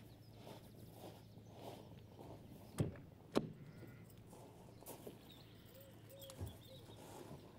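A car door being unlatched and swung open, in quiet outdoor ambience with faint birdsong. Two sharp clicks come a little over half a second apart just before the middle, and a short pitched sound with a thump follows later.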